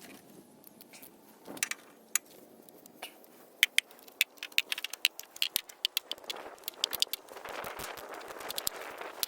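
Irregular sharp clicks and metallic clinks of hand tools and parts being handled, thickening after the first few seconds, with a scraping rustle near the end.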